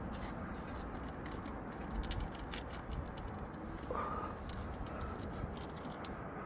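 Faint scratching and light clicks of fingers working the release button of the oil pressure sensor's electrical plug, over a steady background hiss.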